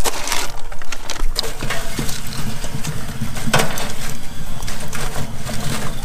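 Charcoal and a wood chunk being handled in a smoker's steel firebox: scattered clinks and crunches of coals, with one louder knock about halfway through.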